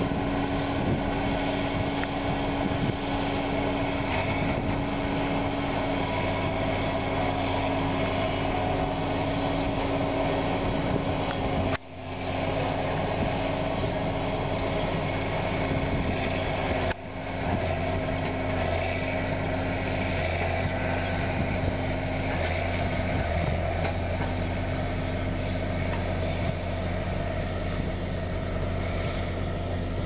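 Diesel engine of a Caterpillar Challenger 55E track tractor running steadily under load while it pulls a side-dressing applicator, a constant drone with a low hum. The sound drops out briefly twice around the middle.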